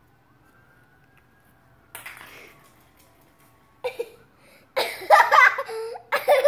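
A quiet couple of seconds with two brief rustling knocks, then a young child's voice breaking into loud crying-out near the end.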